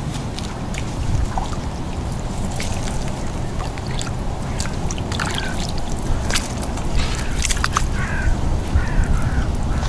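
Shallow muddy water sloshing and splashing as a person moves in it barefoot, with scattered wet clicks over a steady low rumble.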